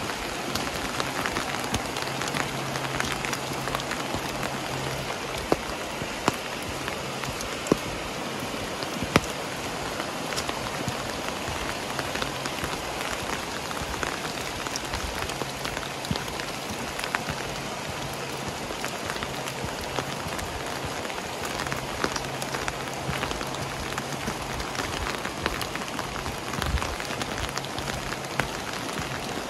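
Steady rain falling, with many sharp drop hits close by standing out from the even hiss.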